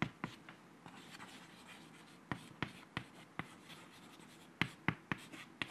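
Chalk writing on a chalkboard: a faint scratching broken by short, sharp taps as the chalk strikes the board, two near the start, then four in a row, then four more near the end.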